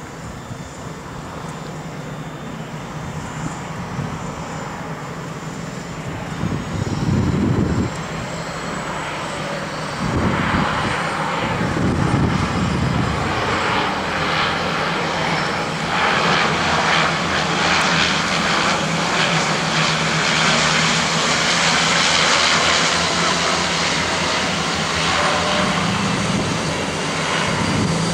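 de Havilland Canada DHC-6 Twin Otter floatplane's two turboprop engines and propellers, growing louder as it passes low overhead on its landing approach, then running loud and steady.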